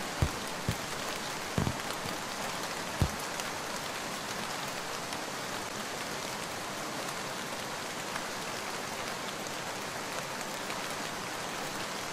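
Steady rain falling, an even hiss, with a few short, soft low thumps in the first three seconds.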